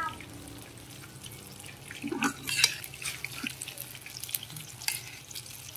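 Battered banana fritters deep-frying in a pan of hot oil: a steady sizzle with scattered crackles, louder crackling about two seconds in.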